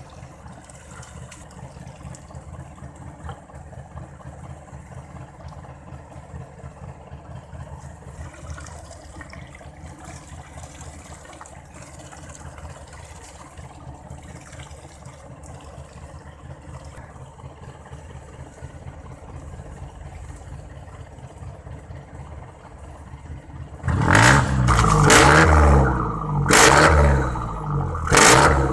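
Jeepney engine idling with a steady low rumble while water is poured into its stainless steel tailpipe. About 24 seconds in it is revved hard three times in quick succession, the exhaust blasting loudly and spraying mist out of the pipe to blow out carbon and bring back the muffler's loud bark.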